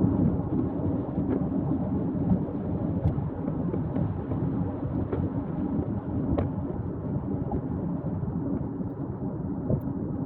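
Strong wind buffeting the microphone: a steady, fluttering low rumble with a few faint ticks.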